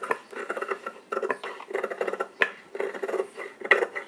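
Large tailor's scissors cutting through cotton fabric, a run of short crunching snips with sharper clicks of the blades closing.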